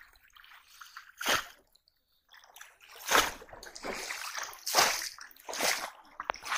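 Shallow river water splashing and sloshing as people wade through it and plunge a bamboo polo fish trap: a string of separate splashes, the loudest about three and five seconds in.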